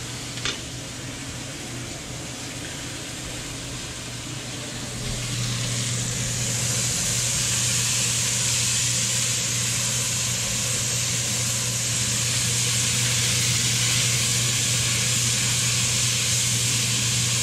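Diced zucchini, yellow squash and eggplant sizzling steadily in a red enamelled Dutch oven as they brown. The sizzle grows louder about five seconds in, over a steady low hum.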